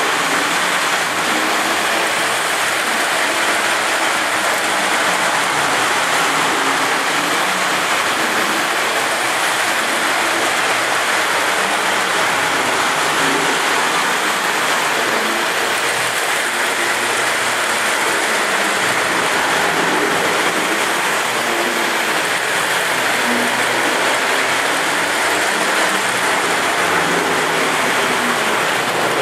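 Several model trains running at once: the steady, noisy rumble and clatter of their wheels and motors on the track, mostly from the O scale trains.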